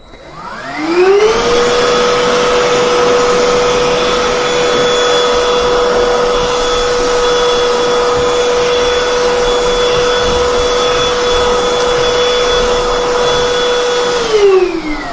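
BLACK+DECKER 20V Max cordless handheld vacuum (BDH2000PL) switched on. Its motor whines up to speed over about a second and a half, runs steadily, then winds down with a falling whine just before the end.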